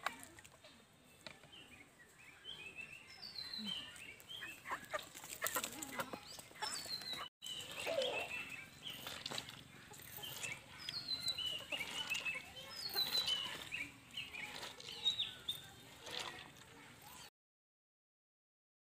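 Small snails' shells scraping and crunching as they are rubbed by hand against a rough stone slab, with a hen clucking and many short, high, falling chirps of birds. The sound cuts out completely for about a second and a half near the end.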